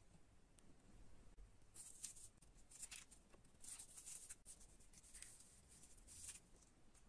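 Faint scratchy rustling of paper-covered cardboard pieces handled between the fingers, a run of short scraping strokes starting about two seconds in.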